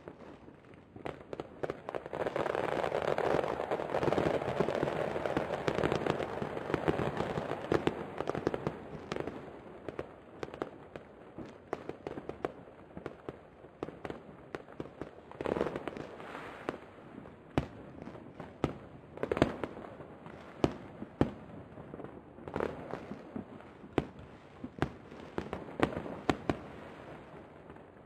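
Aerial fireworks going off: a dense run of rapid bangs and pops for several seconds, then single shell bursts about once a second, thinning out toward the end.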